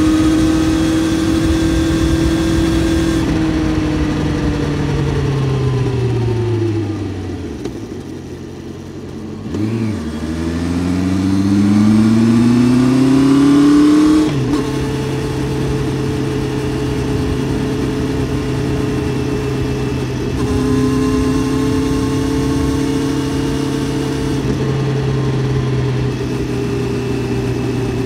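Honda CBR650F's inline-four engine under way. The revs fall for several seconds as the bike slows, with a brief blip of throttle, then climb for about four seconds under acceleration. They drop sharply at an upshift and then hold steady at cruising speed.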